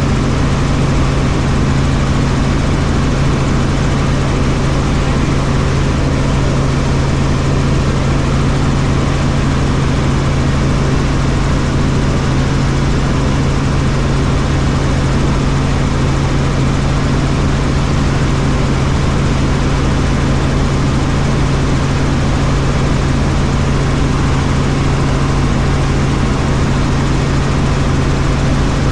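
Helicopter in flight: the steady noise of its turbine engine and rotors, with a strong low hum that holds the same pitch throughout.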